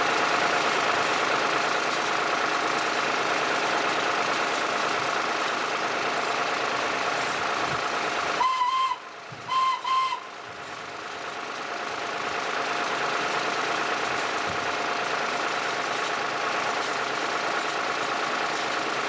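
Vintage belt-driven farm machinery running, a steady dense mechanical hum with many high whining tones. About eight and a half seconds in, a whistle gives two short toots. The machine noise dips around the toots and builds back up over the next couple of seconds.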